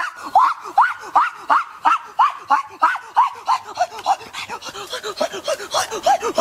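A man's voice making short rising calls in a fast, even rhythm, about three a second, without words.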